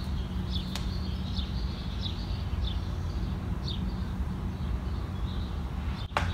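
A bird chirping: short, high, falling chirps repeating about every half second to second. A steady low hum runs underneath.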